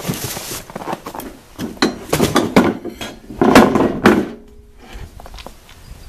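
Cardboard packaging rustling and scraping while steel uprights of a Harbor Freight sawmill are lifted out and laid on a plywood table, with metal clanks and knocks. The loudest handling noise comes about three and a half seconds in.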